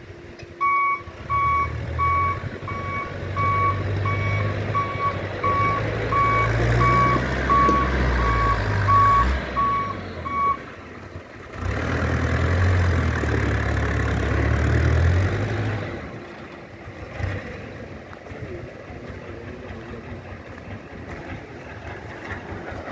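Dump truck reversing: its back-up alarm beeps steadily, about one and a half beeps a second, over the diesel engine pulling under load. The beeping stops about ten seconds in, the engine pulls again for a few seconds, then drops back to idle.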